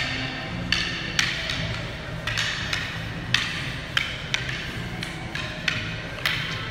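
Kali practice sticks clacking against each other in a stick-on-stick strike-and-block drill. The sharp knocks come unevenly, roughly two a second, and each has a short ringing tail.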